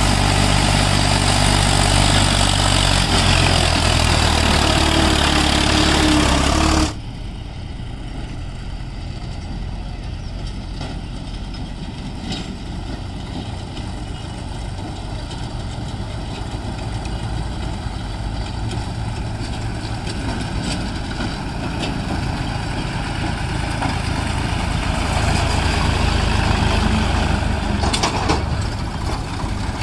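Diesel farm tractor engine running as it hauls a trolley. It is loud and close for about the first seven seconds, then drops suddenly to a quieter, more distant engine sound that builds slowly toward the end.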